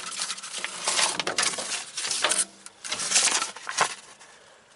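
Metal hand tools clinking and rattling against each other as they are rummaged through in a tool chest, mixed with rustling; it dies down near the end.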